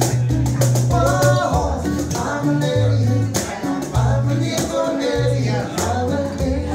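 Live acoustic duo song: a strummed acoustic guitar and two male voices singing into microphones, over a low bass line whose notes change about once a second.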